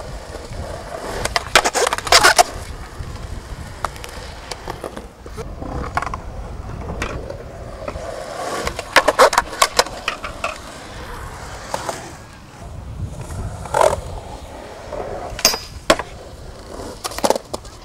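Skateboard wheels rolling with a steady rumble, broken by sharp wooden clacks of the board: a quick cluster about two seconds in, another about nine seconds in, and several single knocks near the end. The clacks are tricks being popped and landed.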